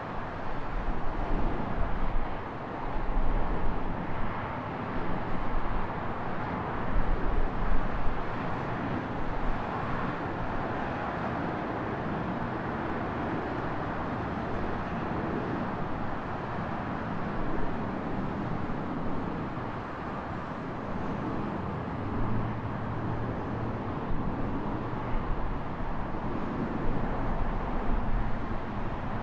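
City traffic noise with wind rumbling on the microphone. The wind is heaviest in the first several seconds.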